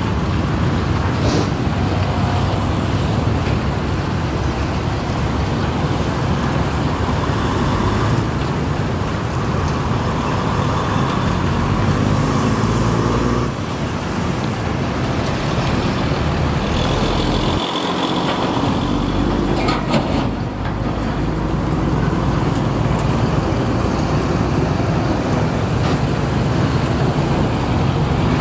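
Matador ME210LC-1 crawler excavator's diesel engine running steadily under load as it digs, with road traffic in the background. A few sharp knocks stand out, about a second in and again around twenty seconds in.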